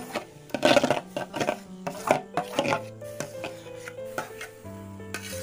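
Steel spoon scraping and knocking against a metal bowl as thick palm-pulp and milk batter is scraped out into a karai, in irregular strokes that are loudest in the first second and again about two seconds in. Soft background music runs underneath.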